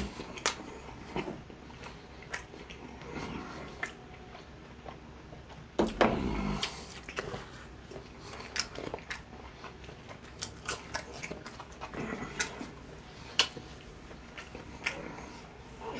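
Chewing and biting crispy fried chicken, with scattered short clicks and a louder bite about six seconds in.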